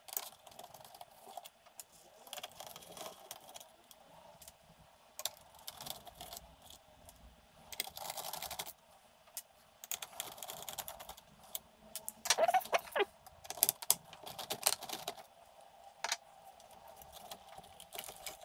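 Amstrad CPC464 keyboard and plastic case being taken apart by hand: a screwdriver working small screws out of the keyboard's metal backplate, with scattered clicks, scrapes and rattles, busiest about halfway through.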